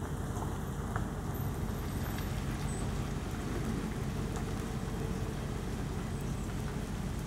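Chevrolet Spark hatchback creeping slowly forward over a wet road: a steady low rumble with an even hiss.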